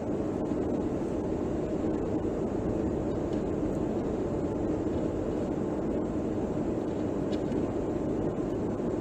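Steady low rumble of room noise in a large studio hall, even throughout with no distinct events.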